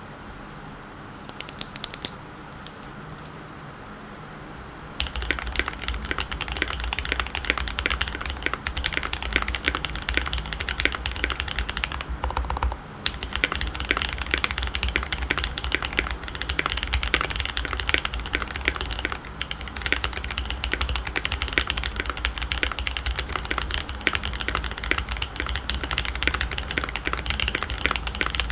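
Keystrokes on a custom mechanical keyboard: SP-Star Purple switches lubed with 205g0 and filmed, on an aluminium plate with GMK keycaps. A few sharp clicks come in the first couple of seconds. Steady, fast typing starts about five seconds in, with a brief pause around the middle.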